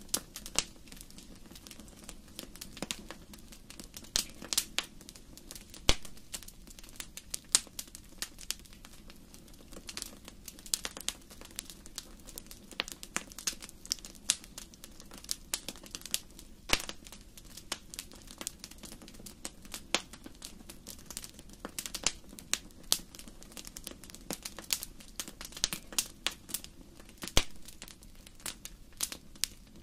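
Wood fire crackling in a fireplace: irregular sharp pops and snaps, several a second, over a low steady hiss of burning.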